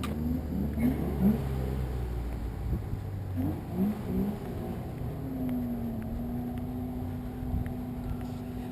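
Rally car engine revving in short quick bursts, each rev rising sharply in pitch, twice in the first four seconds; from about five seconds in a steady, even engine note holds.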